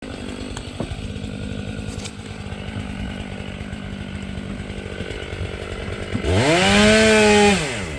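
Two-stroke chainsaw idling, then revved up to full throttle about six seconds in, held briefly and let back down toward idle near the end.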